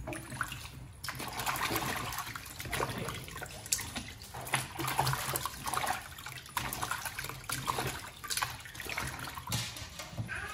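Stir-fry sizzling and bubbling in a wok while a wooden spatula tosses the food, with repeated scrapes and knocks against the pan. A steady low hum runs underneath.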